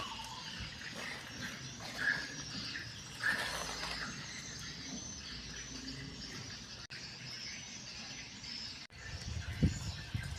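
Outdoor ambience: birds chirping over a steady high-pitched hiss, with a few low knocks near the end.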